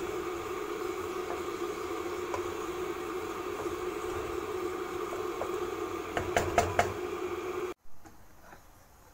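A spatula stirring and scraping a stir-fry of chicken, green beans and carrots in a non-stick wok over a steady hiss and hum, with light clicks of the spatula throughout and a quick run of sharp knocks against the pan about six seconds in. Near the end the sound cuts to a much quieter background.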